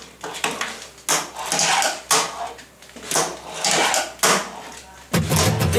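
Fingerboard rolling on a wooden counter and plywood ramp, with a sharp wooden clack about once a second as the little board pops and lands. Music comes in near the end.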